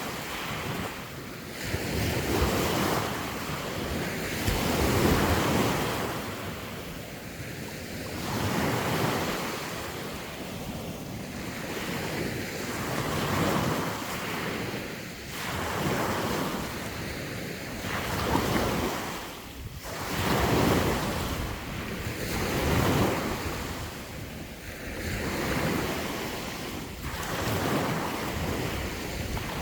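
Sea waves breaking and washing on the shore, swelling and fading every two to three seconds, with wind buffeting the microphone.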